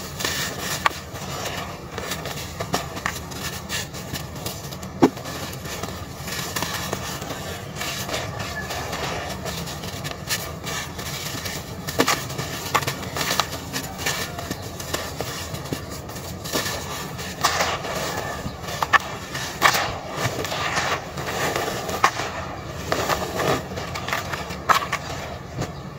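Dry red dirt chunks crushed and crumbled by hand, with sharp cracks as pieces snap and a gritty rustle of crumbs and powder falling into a plastic tub of loose dirt. Near the end fingers rake through the dry powder.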